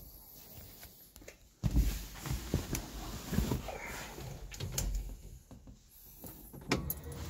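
Someone climbing into a car's driver's seat: rustling and handling noise with several bumps, starting suddenly about a second and a half in, and a sharp thump near the end.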